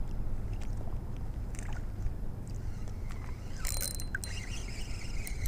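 Low, steady wind rumble on the microphone and water moving around a wading angler, with light ticks from a spinning reel as its handle is cranked. A short hiss about three and a half seconds in.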